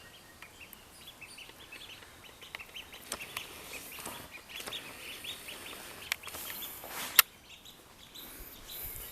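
Ducklings peeping, many short high chirps in quick succession. A sharp click about seven seconds in is the loudest moment.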